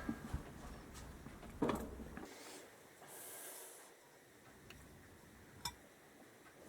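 Faint workshop handling noises from engine reassembly work: a few light knocks and clicks of tools and parts, and a brief hiss about three seconds in.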